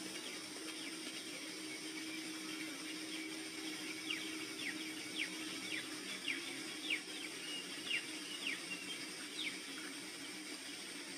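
Soft ambient music with a low steady drone over a steady hiss, and a bird giving about ten short, downward-sliding calls a little over half a second apart, from about four seconds in until near the end.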